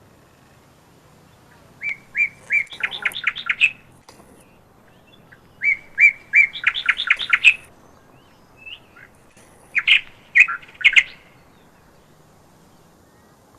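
A songbird singing three short phrases, each a few separate notes running into a quick series of chirps.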